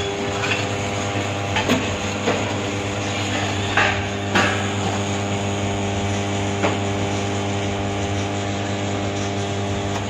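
Commercial espresso machine pump running with a steady low hum while a shot pours into a cup, with a few light knocks and clinks of metal and cup against the machine.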